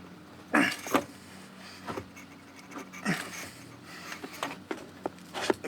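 A person's short, effortful breaths, four of them, each dropping in pitch, while straining to push a tight-fitting part into place.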